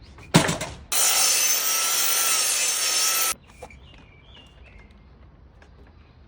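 A sharp knock, then a power tool cutting for about two and a half seconds with a steady, high hiss, stopping abruptly.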